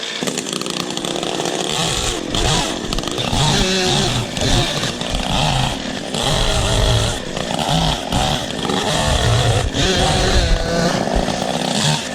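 Chainsaw running hard while cutting wood, its engine dipping and picking back up several times.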